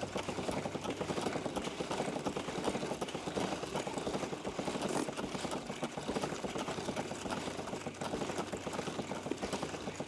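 Kerosene spritzed from a hand trigger spray bottle onto a motorcycle drive chain while the chain is turned round by hand, with a rapid, steady ticking of the chain links running over the sprocket.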